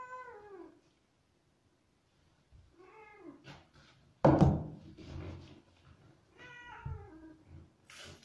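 A white long-haired cat meows three times while being shampooed in a bathtub, each call rising and then falling. A sharp thump about four seconds in is the loudest sound.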